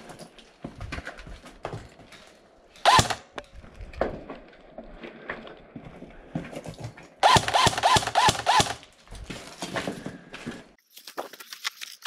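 Airsoft rifle fire: a short loud burst about three seconds in and a longer one from about seven to nine seconds in. Between them, footsteps crunching and knocking on brick rubble.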